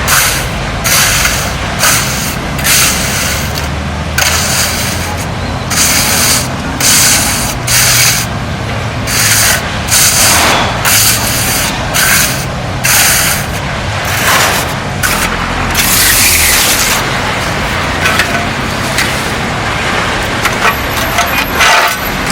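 Repeated rough scraping strokes of a hand tool working concrete, roughly one a second and unevenly spaced, over a steady low hum. About two-thirds of the way through, one longer continuous scrape.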